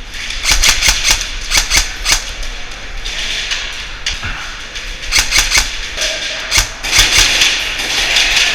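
Airsoft guns firing in rapid bursts, sharp snapping clicks in three strings, the first about half a second in and two more after the middle.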